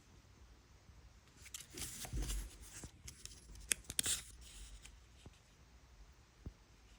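Faint rustling of paper pages being handled, with a few light ticks, mostly in the middle of the stretch.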